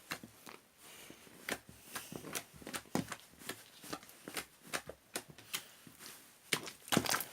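Hands handling something: a run of irregular light clicks and taps, two or three a second, over faint rustling, with a cluster of louder clicks near the end.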